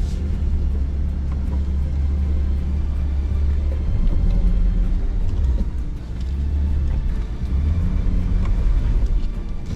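Low rumble of an off-road vehicle's engine crawling over rough ground, under background music.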